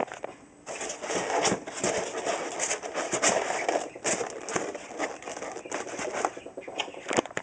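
Styrofoam scraping and squeaking against styrofoam, the foam lid of a homemade incubator box being worked shut, with irregular crackling creaks and clicks that start about half a second in.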